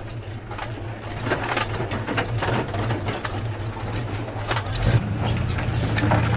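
ZIL-131 army truck engines running at low speed as the trucks drive past towing anti-aircraft guns, with the towed gun carriages clanking and rattling. About five seconds in there is a thud, and the nearest truck's engine grows louder as it passes close.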